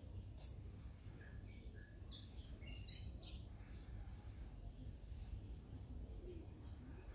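Small birds chirping: short, high calls scattered through, over a steady low rumble.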